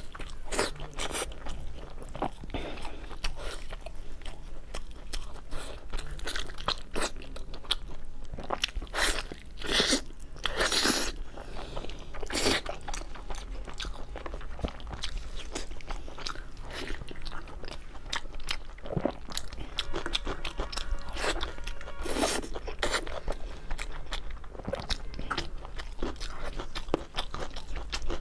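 Close-miked eating: biting into and chewing a braised deboned pork knuckle, a dense run of sharp, irregular clicks.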